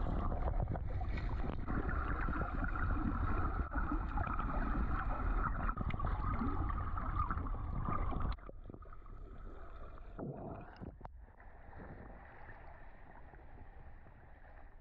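Muffled underwater sound from a camera held below the sea surface: a steady rushing rumble of moving water. About eight seconds in it cuts off suddenly to a quieter wash of water and wind at the surface.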